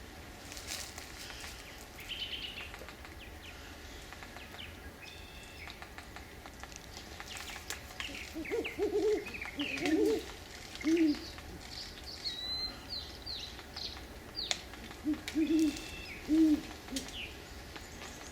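Great horned owl hooting: two runs of short, low hoots, the first about halfway through and the second near the end. Small birds chirp faintly in the background.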